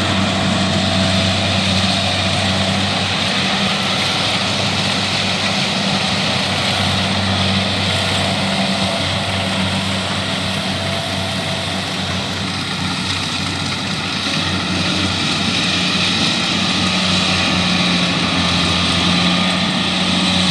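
Kubota DC70 rice combine harvester's diesel engine running steadily at working speed, a constant drone with only slight rises and falls.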